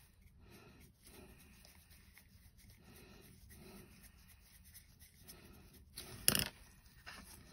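Faint scratching of a paintbrush worked over a small 3D-printed token in soft, repeated strokes. A brief, louder bump comes about six seconds in.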